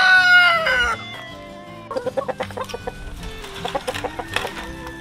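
A rooster crowing: the end of a long crow that falls in pitch and stops about a second in. After it, chickens clucking in short, irregular calls.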